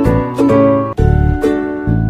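Background music: a plucked-string tune, like a ukulele, over a steady bass beat.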